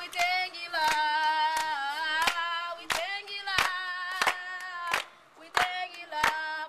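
A group of women singing together unaccompanied, clapping their hands in time at about three claps every two seconds. The singing drops away for a moment about five seconds in while the clapping carries on.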